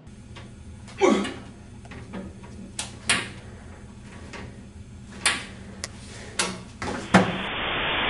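A person stumbling about, bumping against a wall and mirror: about seven scattered knocks and thumps over a low steady hum, the loudest near the end.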